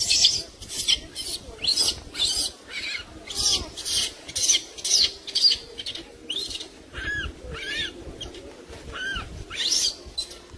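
Infant rhesus macaque crying: short high-pitched squeals that rise and fall, one or two a second, mixed with harsher, noisy bursts. These are the distress and begging cries of a baby kept from nursing.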